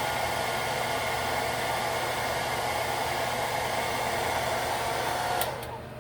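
Hair dryer blowing steadily as it dries lace-wig adhesive, then switched off with a click about five and a half seconds in.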